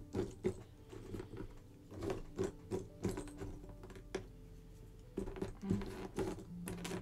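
Cardboard jigsaw puzzle pieces clicking and rustling as a hand sifts and picks through a loose pile of them, in irregular bursts of small taps.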